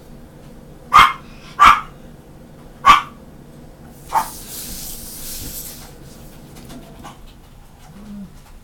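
A dog barks three times in quick succession, then once more, fainter. A brief soft hiss follows.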